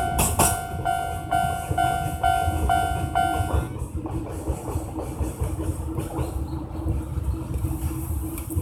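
Japanese level-crossing alarm bell ringing about twice a second, then stopping about four seconds in, over the low rumble of a Chichibu Railway freight train of limestone hopper wagons. A steady hum from the train carries on after the bell stops.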